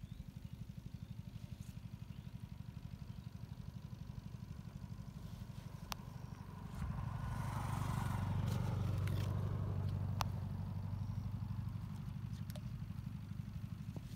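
A small engine running steadily with a fast, low throb, and a second engine growing louder about halfway through and fading again a few seconds later, as if passing by. A few sharp clicks sound over it.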